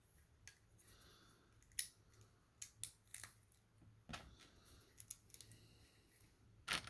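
Faint, scattered clicks of small plastic Lego tiles being picked up and pressed into place, about eight light clicks, the sharpest about two seconds in and just before the end.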